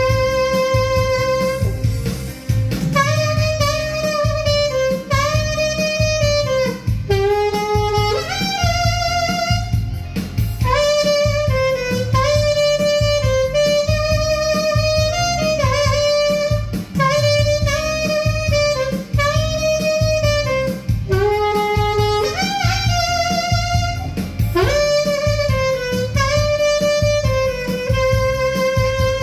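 Saxophone playing a melody of sustained notes, some with vibrato and quick slurred runs, over a backing track with a steady low beat. The line ends on a long held note.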